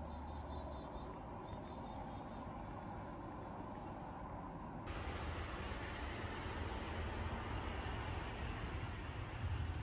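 Small birds chirping in the woods: short, high chirps repeating again and again over a steady low rumble. The background noise turns abruptly brighter about five seconds in.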